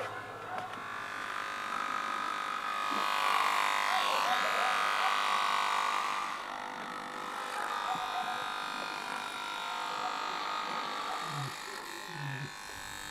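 Electric hair clippers buzzing steadily while cutting a boy's hair.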